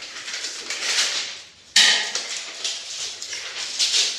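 Steel parts being handled: rattling and scraping metal with one sharp, loud clank a little under two seconds in, then more uneven clanking and knocks. The metal is steel roll-cage tubing and clamped stand gear being fitted.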